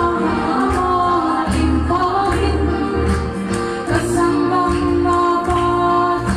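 A woman singing a Christian song into a microphone, amplified, over accompanying music with a steady beat.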